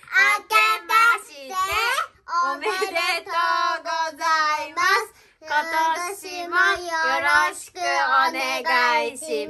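A young child singing a song in a high voice, in four phrases with short breaks between them.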